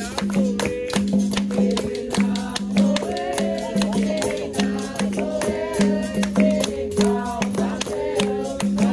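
Capoeira roda music: berimbaus twanging a repeating rhythm with a shaken rattle, a jingling pandeiro keeping an even beat, and voices singing the roda chorus.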